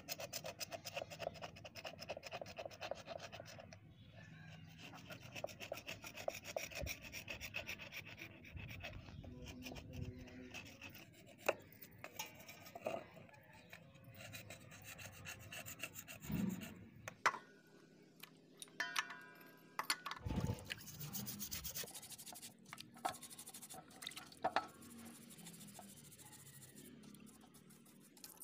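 Utility-knife blade scraping over a grimy water filter head in quick repeated strokes, shaving off caked dirt and rust.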